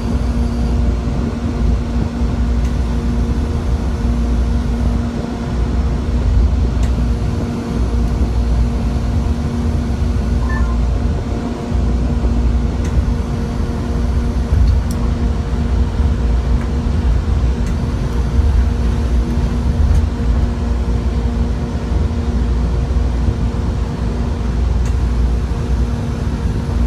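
AirTrain Newark monorail car running between stations, heard from inside the car: a steady low rumble with a constant motor hum over it.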